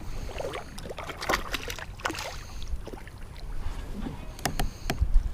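A kayak on the water: scattered light knocks and small splashes over a low rumble.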